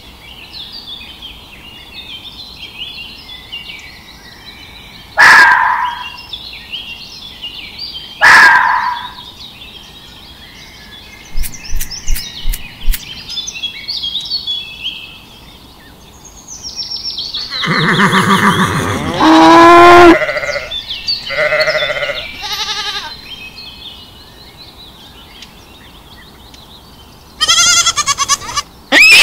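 Goat and sheep bleating in long, wavering calls, loudest about two-thirds of the way in and again near the end, over faint bird chirping. There are also two short, loud animal calls a few seconds in.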